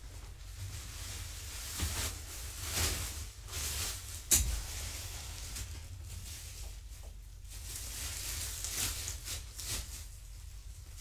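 Soft rustling and handling noises, as of fabric and a blanket-lined cat bed being moved, over a steady low hum, with one sharp click about four seconds in.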